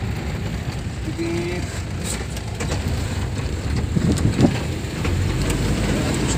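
Van engine running and road rumble heard from inside the cabin while driving, with a brief louder bump about four seconds in.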